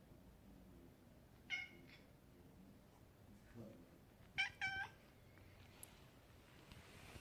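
A cat meowing: one short, high meow, then two quick meows one after the other about three seconds later.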